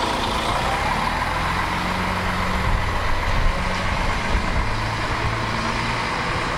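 Large diesel vehicle engine idling steadily, with a constant hiss over a low hum that shifts slightly in pitch now and then.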